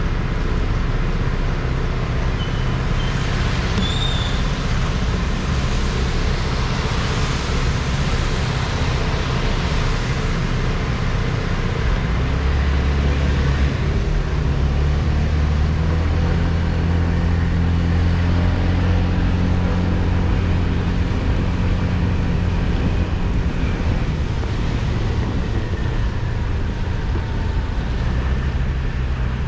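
Motor vehicle engine hum with steady road hiss on a wet road; the engine note gets louder and heavier from about the middle for several seconds. A brief high squeak about four seconds in.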